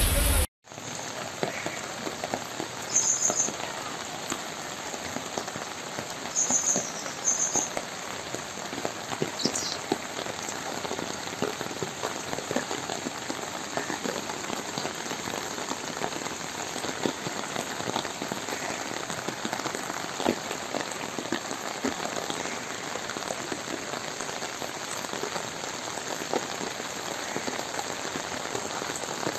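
Heavy rain falling steadily on wet ground and water, an even hiss. A few short high-pitched sounds come in the first ten seconds.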